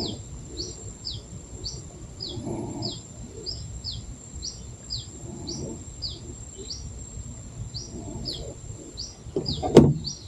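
A bird repeating a high call of quick falling chirps, mostly in pairs, about once a second, over a thin steady high tone. A sharp knock sounds near the end.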